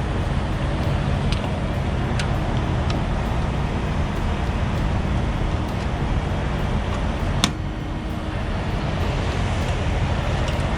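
Peterbilt 579 semi truck's diesel engine running steadily, with a few light clicks.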